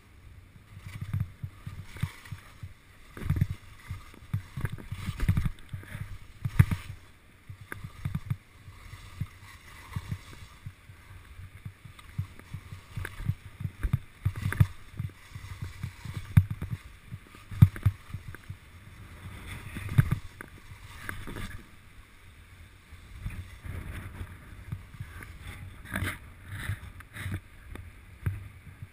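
Skis scraping and chattering over packed snow on a mogul run. It comes in irregular surges, with low rumbling thumps as the skis turn and hit the bumps.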